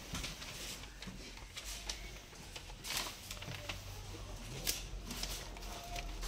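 Faint scattered rustles and light clicks over low room noise, a few short ones spread through, with a brief faint tone near the end.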